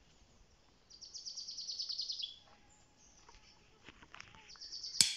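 A songbird trilling: a fast run of high chirps, about ten notes a second, starts about a second in and lasts over a second. A shorter run follows near the end.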